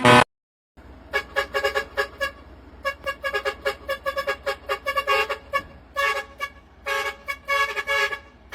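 Large trumpet air horn blowing a rapid, uneven series of short toots, with a few longer blasts near the end.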